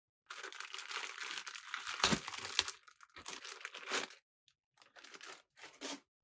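Clear plastic bag crinkling as a coiled USB cable is pulled out of it, loudest about two seconds in, then a few shorter rustles near the end.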